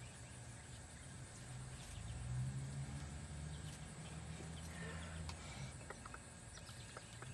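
Faint clicks and taps of plastic toy vehicles being handled in sand, over a low steady hum that comes in about two seconds in and fades near the end.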